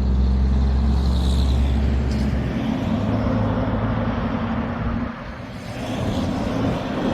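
A motor vehicle's engine running with a deep, steady hum. Its pitch shifts higher about two and a half seconds in, with a broad rushing noise over it and a brief drop in level around five seconds in.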